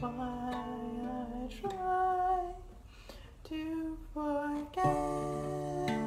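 Ukulele chords plucked and strummed, the notes ringing on, with a soft hummed melody over them and a brief lull about halfway through.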